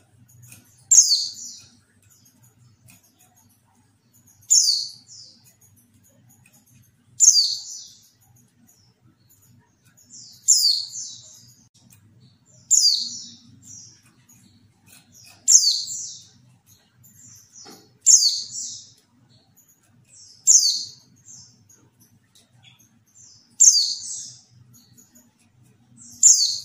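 Female white-eye (pleci) calling: a short, high call repeated ten times, about every two and a half to three seconds. Each call is a quick downward-sweeping note.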